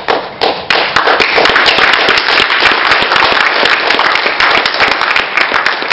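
Audience applauding, many hands clapping densely and loudly.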